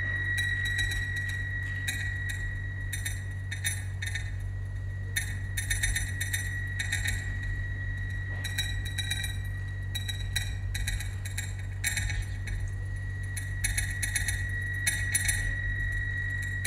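Electronic stage soundtrack: a deep steady drone under a thin, high held tone, scattered with irregular glassy clicks and clinking ticks.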